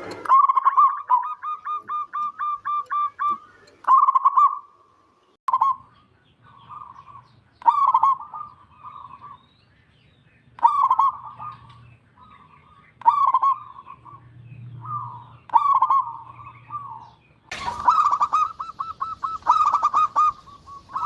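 Zebra dove (perkutut) cooing: a long run of quick, soft notes at the start, then short phrases of rolling coos repeated every two to three seconds.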